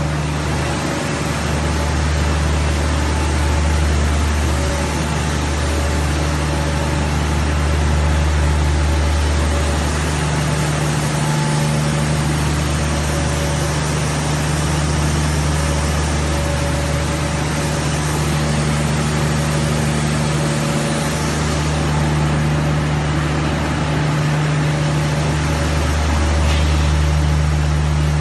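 Extrusion laminating machine for aseptic liquid packaging board running: a loud, steady mechanical hum with a deep drone under a constant rushing machine noise.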